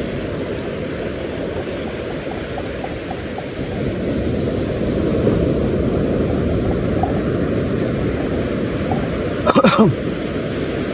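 Steady low rumble of wind and surf on the shore, growing louder about four seconds in. A man gives a brief exclamation near the end.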